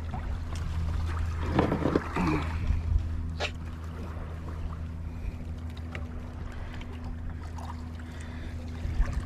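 Small boat's engine running steadily with an even low hum.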